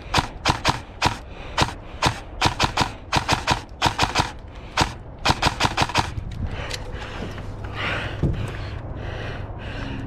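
Airsoft rifle firing rapid single shots in quick runs, each a sharp crack, stopping about six seconds in. Steady wind noise follows.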